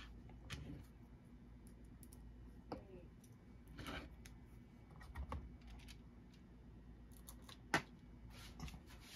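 Scattered small clicks and taps of a circuit board and small metal hardware being handled on a cutting mat, the sharpest click near the end, over a steady low background hum.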